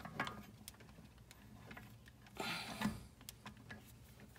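Faint scattered clicks and light metal knocks as a cordless impact wrench's long socket is fitted onto a brake caliper bolt, with a brief louder scuffle about two and a half seconds in.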